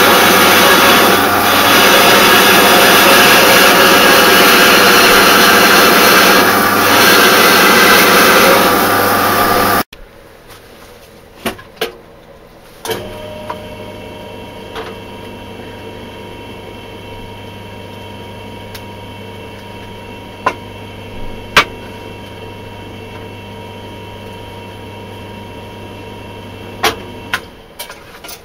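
Band saw running and cutting through wood, loud and steady, stopping abruptly about ten seconds in. After it, a much quieter steady machine hum with scattered sharp clicks and knocks.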